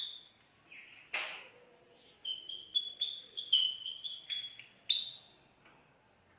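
Chalk writing on a blackboard: a quick series of short chalk strokes and taps, many with a thin high squeak, and one longer scrape about a second in. The strokes stop about five seconds in.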